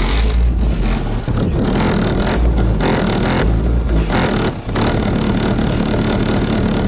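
Two Earthquake DBXi12D subwoofers in a car boot playing bass-heavy music loudly, with deep bass notes pulsing under a steady beat. The deepest bass eases after a brief dip about four and a half seconds in.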